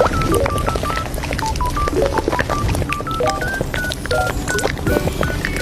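Café ambience: background music with a melody of short, high notes, over steady low room noise with frequent sharp clinks of crockery and cutlery.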